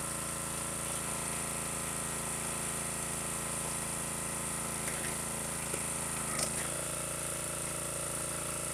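Log splitter's small gasoline engine running steadily. Its tone shifts about six and a half seconds in.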